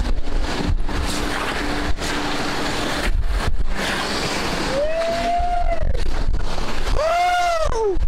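Whitewater rapids rushing around a raft, with wind buffeting the microphone. In the second half a voice calls out twice, each call drawn out and rising then falling in pitch, the second louder.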